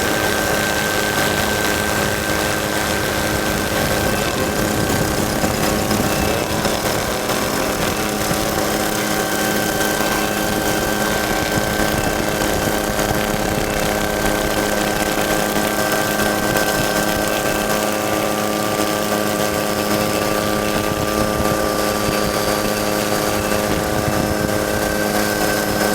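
Ford EcoBoost trophy truck engine running steadily, its pitch holding nearly constant throughout.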